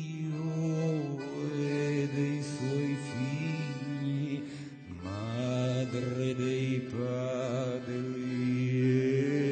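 Music: low voices chanting on long held notes, with a violin playing above them. The voices shift pitch after a short dip about halfway through.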